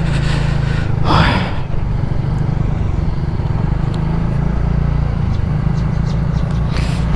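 TVS NTORQ scooter's single-cylinder engine running steadily while riding, with a brief rush of noise about a second in.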